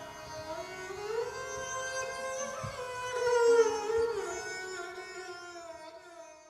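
Indian classical music on a string instrument: a slow melody of long held notes that slide up and down between pitches, fading out near the end.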